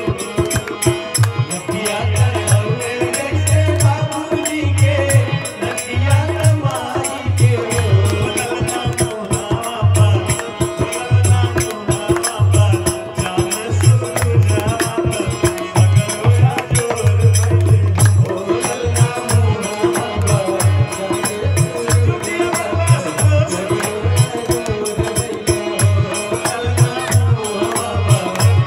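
Live sohar folk song: a man singing over a harmonium, with a drum thumping an uneven beat and jingling percussion keeping a quick rhythm.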